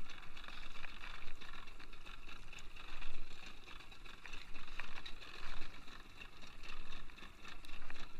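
Washing noise of the sea around a small fishing boat, swelling and easing every second or so.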